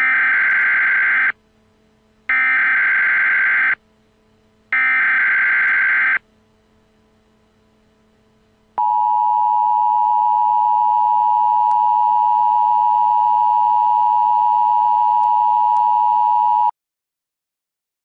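Emergency Alert System SAME header: three bursts of screeching data tones, each about a second and a half long and a second apart. About two and a half seconds later comes the EAS attention signal, a steady two-tone beep held for about eight seconds, which cuts off abruptly and here opens a nuclear power plant warning.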